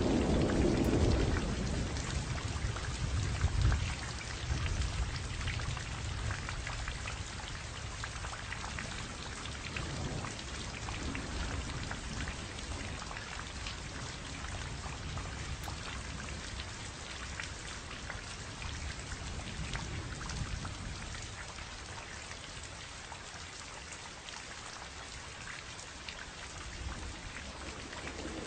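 Steady heavy rain hissing on surfaces, with a low roll of thunder in the first few seconds that dies away into a fainter rumble.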